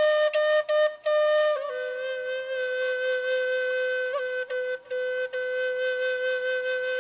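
Background music: a solo flute plays a few short notes, then drops to one long low note held with small turns in it.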